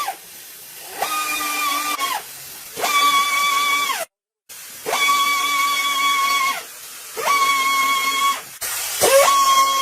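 An electric power tool's motor run in short trigger bursts, about six in a row. Each burst is a second or so long: the whine climbs quickly to a steady high pitch, then drops away as the trigger is released.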